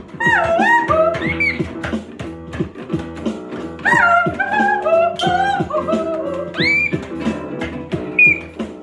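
Music: a plucked, guitar-like backing under a high lead line that swoops downward in pitch in short repeated phrases.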